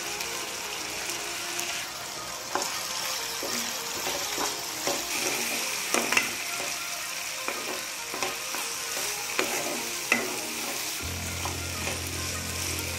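Yellow moong dal, chopped tomatoes and onions sizzling in oil in a nonstick pan. From about two and a half seconds in, a spoon stirs them, scraping and knocking against the pan.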